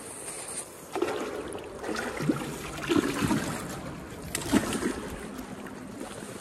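Creek water sloshing and splashing against a concrete wall in uneven swells, with a few sharp knocks.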